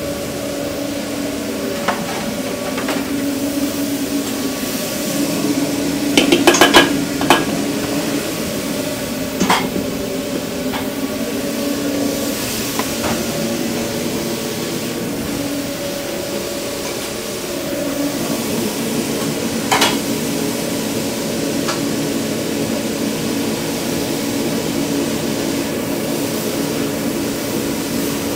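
Food-truck cooking: metal utensils clanking and scraping against pans in scattered knocks, with a quick cluster of clanks about six to seven seconds in and another sharp clank near twenty seconds. Underneath is a steady mechanical hum with sizzling.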